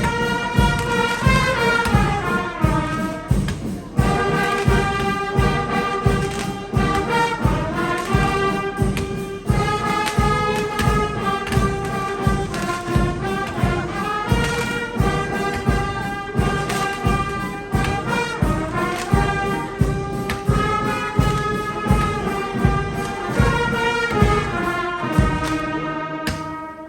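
Church brass band playing a hymn melody in sustained brass notes over a steady percussion beat. The sound drops away near the end.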